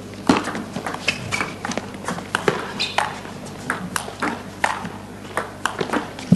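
Table tennis rally: the celluloid ball clicks off the rackets and bounces on the table in a quick, irregular series of sharp pops, several a second.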